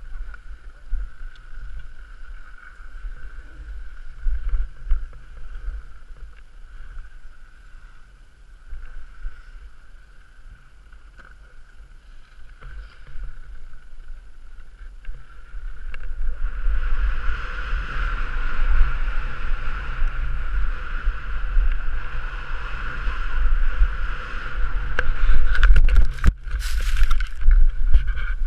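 Wind buffeting the camera's microphone as the skier slides down a groomed piste, with the swish and scrape of skis on packed snow. The noise swells and stays louder from about halfway through as speed picks up, with a few sharp scrapes and knocks near the end.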